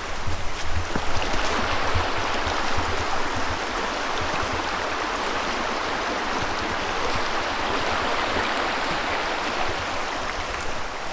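Creek water rushing steadily over rocks, with a few low thumps in the first few seconds.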